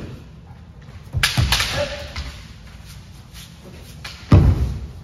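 Kendo sparring: sharp cracks of bamboo shinai strikes mixed with heavy thuds, in two loud clusters. The first comes about a second in as a quick run of several hits, the second near the end.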